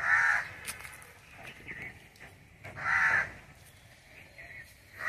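A crow cawing: two loud, harsh caws about three seconds apart, with fainter bird chirps between them.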